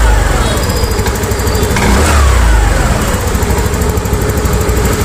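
TVS Jupiter 110 scooter's single-cylinder engine running on the move, its pitch falling away twice. It is being run to show the intermittent misfiring and cut-out that starts once it is hot, a fault later traced to a bad spark plug.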